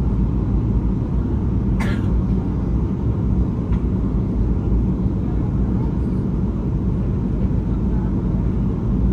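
Steady low rumble of airliner cabin noise, jet engines and airflow heard from inside the cabin on the landing approach, with one short sharp click about two seconds in.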